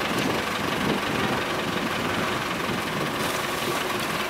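Farm tractor engine running steadily while it reverses a boat trailer down a ramp into the water.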